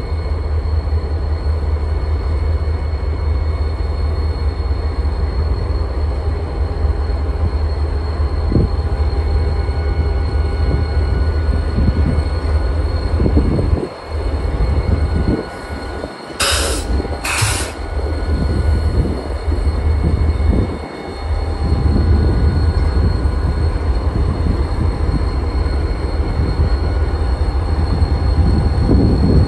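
BNSF diesel locomotives rolling slowly past with their engines running, a deep steady rumble with a faint high whine above it. Two short, sharp hisses come about halfway through.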